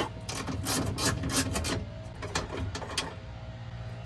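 Irregular clicks and scraping from hand-tool work on the truck's underside, busiest in the first couple of seconds and then sparser.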